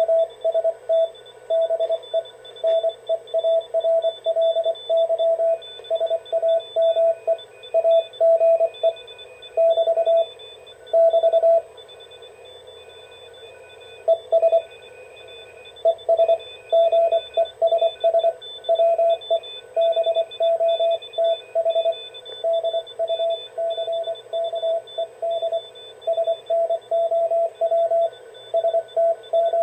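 Morse code (CW) signal coming out of a Ten-Tec T-Kit 1056 direct-conversion receiver's speaker: a steady tone keyed on and off in dots and dashes over band hiss. Fainter, higher-pitched CW stations key at the same time. The main signal falls silent for a couple of seconds about halfway through.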